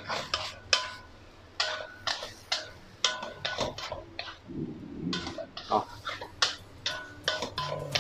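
Spatula tossing and stir-frying rice vermicelli in a stainless steel wok: irregular knocks and scrapes against the wok, about two or three a second, several leaving a short metallic ring.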